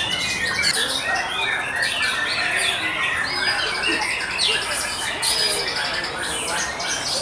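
White-rumped shamas (murai batu) singing, several birds' songs overlapping in a dense mix of loud, varied whistles, chirps and fast trills.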